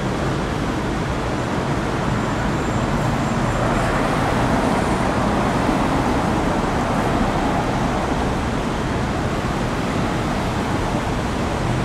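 Steady city street traffic noise, swelling a little for a few seconds in the middle as a vehicle goes by.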